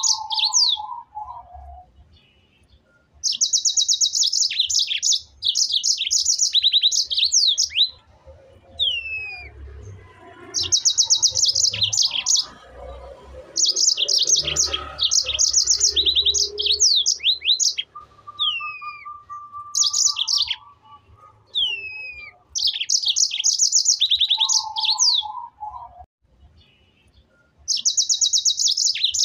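A songbird singing: short phrases of fast, high trills ending in quick downward-sliding notes, repeated every few seconds.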